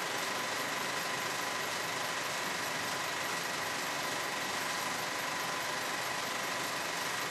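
A steady, unchanging hiss with faint high tones held beneath it.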